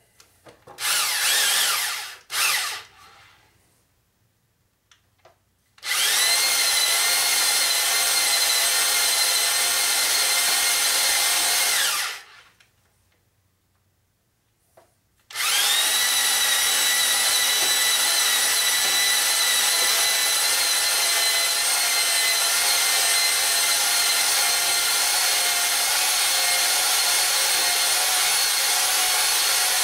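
Electric drill spinning a stone cylinder hone in a bore of a Ford Model A/B four-cylinder flathead block, taking out taper and out-of-round. There is a short burst about a second in, then a steady whine for about six seconds that stops, and after a pause of about three seconds it starts again and runs on steadily.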